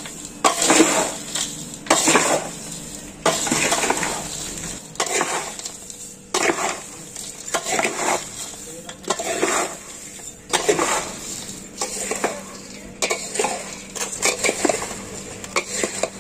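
A flat wooden stick stirring and tossing dry fried namkeen (crisp sev and fried peanuts) in a large metal bowl: a rustling, scraping stroke about once every second or so.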